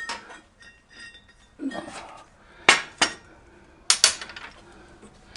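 Steel bracket parts and a clamp being handled on a metal work surface, giving sharp metal clanks about four times in the second half, with lighter knocks and scrapes between.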